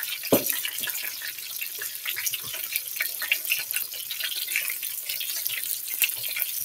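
Fish deep-frying in hot grease, a breaded whole tilapia and catfish pieces: a steady sizzle thick with tiny crackling pops. A single knock comes about a third of a second in.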